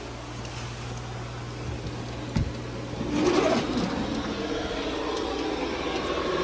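2011 Ducane heat pump running in heat mode with the auxiliary heat on, a steady low hum. There is a single knock about two and a half seconds in, and from about three seconds the sound grows louder and rougher.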